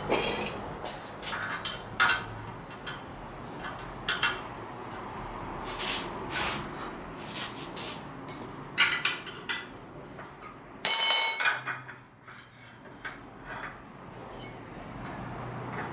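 Scattered metallic clinks and knocks, with one loud ringing metal strike about eleven seconds in.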